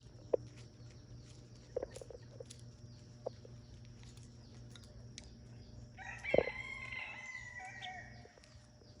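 A farmyard fowl gives one long crowing call, about two seconds long, starting about six seconds in, with a sharp knock near its start. A few scattered knocks come before it.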